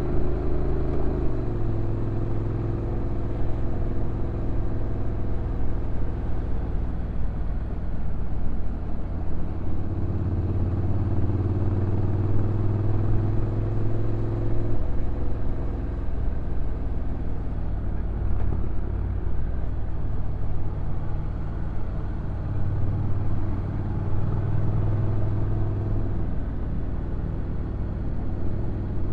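Honda NC750X's parallel-twin engine running steadily on a downhill ride, recorded onboard. The engine note drops about a second in and shifts again around the middle as the dual-clutch transmission changes gear and the speed varies, over a steady wash of wind and road noise.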